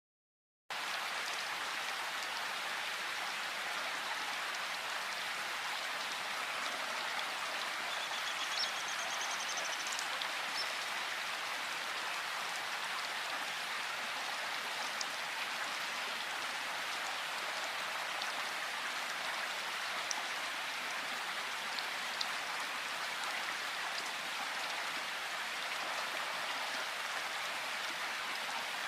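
Steady rain falling in a forest, an even hiss of drops that starts abruptly just under a second in. A short, high bird trill sounds about eight seconds in.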